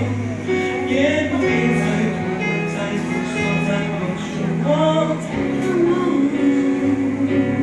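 A man singing a slow pop song into a handheld microphone over a karaoke backing track, with held, sustained notes.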